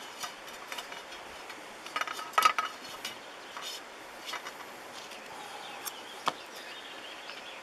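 Light clinks and knocks of a knife and bacon against a small metal camp pot as the bacon is handled for frying, loudest in a short cluster about two seconds in.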